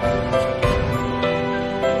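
Background music: a melody of held notes that change about every half second, with a few light percussive strokes.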